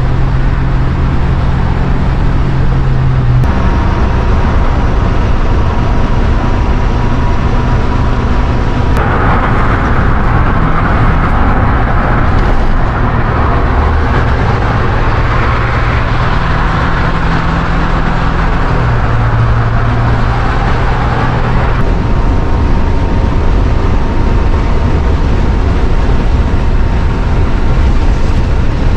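Inside the cab of a motorhome on a Chevy P30 chassis with a 7.4 L 454 big-block V8, at freeway speed: a steady engine drone under road and wind noise. The engine's pitch steps a few times, and the hiss of the road grows louder from about a third of the way in until about three quarters of the way through.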